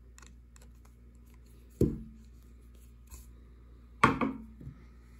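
Two sharp knocks about two seconds apart, with a few faint clicks and rustles between, as a round peg knitting loom and its hook are handled and the loom is moved aside while a knitted piece is lifted off its pegs.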